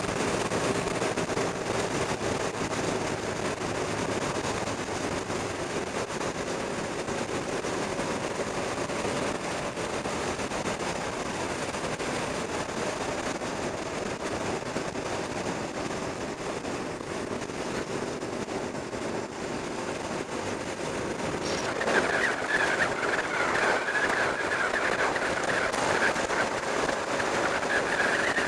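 Motorcycle engine running at road speed, heard from a camera on the bike with wind rush around it. About three quarters of the way through it grows louder and a higher whine joins in.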